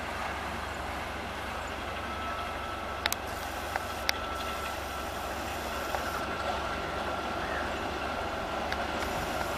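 Diesel locomotive hauling a passenger train, its engine running steadily at a distance, with a faint steady whine from about three seconds in and a few sharp clicks around three and four seconds in.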